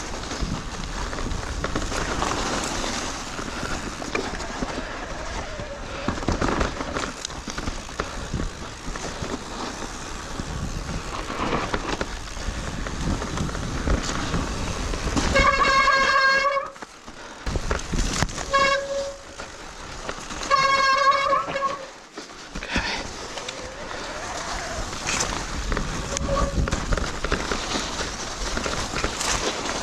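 Riding noise of an electric mountain bike on a snowy trail, with the disc brakes squealing at one steady pitch about halfway through, again briefly, then a third time, and once more at the end.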